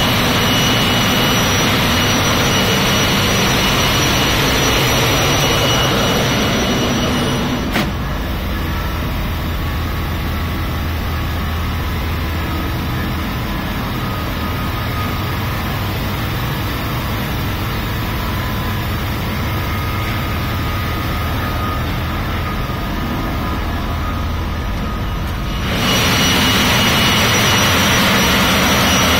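Container ship engine-room machinery making a loud, steady hum and rumble with a few thin high tones. After a click about eight seconds in, the noise drops and turns muffled, and it returns to full loudness near the end.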